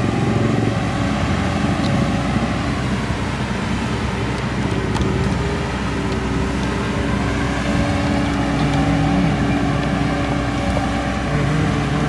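An engine running steadily, its pitch wavering only slightly.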